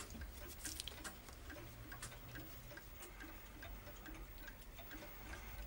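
Clock ticking with a faint, even beat.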